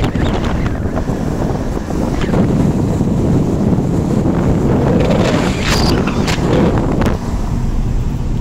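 Wind buffeting the microphone over the road noise of a moving car, a steady rush with a few short crackles.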